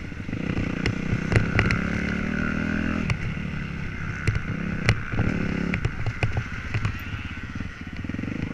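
Motocross bike engine running at low revs while riding slowly, the revs picking up briefly twice and dropping back, with sharp clicks and knocks scattered through.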